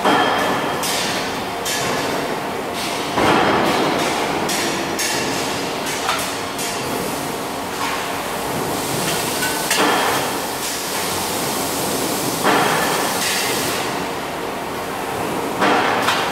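Stamped steel parts being loaded and clamped into a robot welding fixture: sharp metal clanks and knocks every few seconds over a steady, loud factory din.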